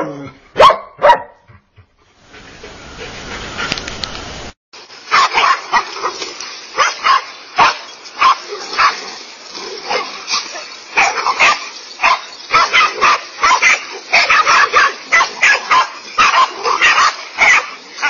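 Several dogs barking rapidly and continuously, short barks overlapping several times a second, as the pack attacks a large snake. Before that, two or three sharp loud barks in the first second or so, then a stretch of faint hiss that breaks off at a cut about four and a half seconds in.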